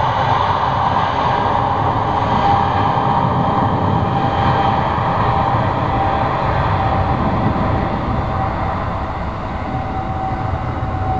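Boeing 777-200ER's GE90 turbofan engines at takeoff thrust during the takeoff roll: a loud, steady jet roar with a constant whine in it, easing a little near the end.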